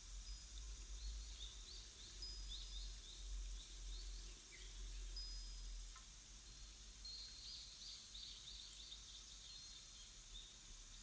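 Faint birdsong: quick runs of short high chirps, thickest about two seconds in and again about seven seconds in, with a few thin whistled notes, over a low steady hum.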